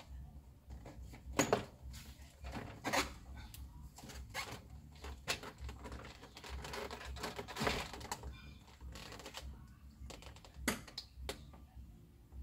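An Audi A6 door trim panel being pulled off the door by hand, giving a string of sharp plastic clicks and knocks as its retaining clips let go. The loudest snaps come about a second and a half in and again near the end.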